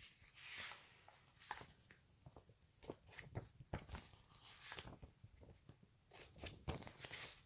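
Faint, scattered crinkles and light taps of plastic snack wrappers being handled.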